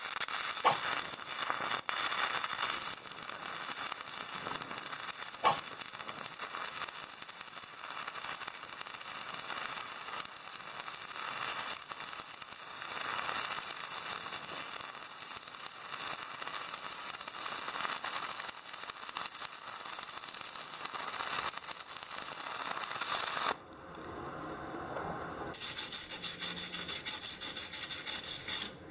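A steady, rough scraping and crackling noise. It breaks off about 23 seconds in, then resumes with a buzzier texture near the end.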